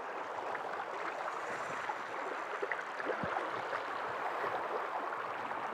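River rapids: water rushing steadily over rocks, with scattered small ticks and a light knock about three seconds in.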